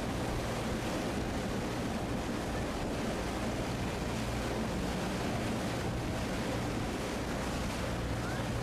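A boat's engine running at a steady low hum under a constant rush of water and wind.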